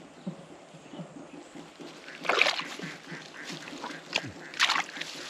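Water splashing twice, about two seconds apart, over a fast series of short low pulses that run on throughout.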